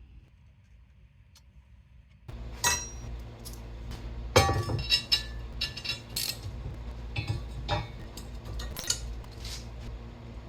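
Hard objects clinking and knocking, with a steady low hum underneath; both begin suddenly about two seconds in.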